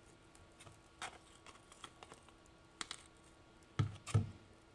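A knife scraping miso paste off its blade into a pan of vegetables: a few soft clicks and taps, with two louder knocks close together near the end.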